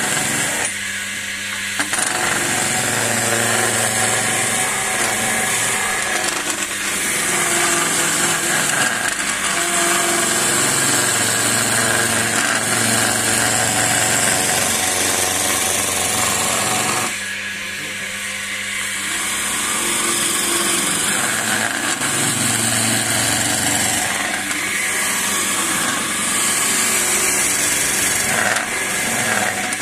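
Wood lathe spinning a long, slender spindle while a hand-held turning chisel shaves it: a steady hissing cut. The cut lets up briefly about a second in and again a little past halfway, then resumes.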